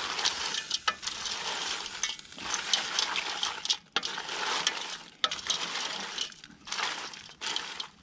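Whole crayfish being stirred with a wooden spoon in a stainless steel pot, their shells clattering and clicking against each other and the pot, over the sizzle of the simmering white wine. The stirring goes in strokes, with short pauses about every second and a half.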